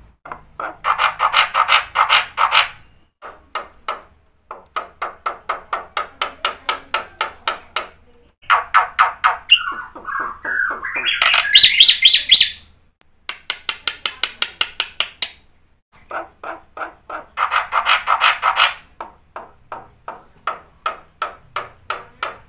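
Jalak putih (black-winged starling) singing in full song: bursts of rapid repeated sharp chattering notes, several a second, with short pauses between them. About halfway through comes a louder run of gliding whistled notes.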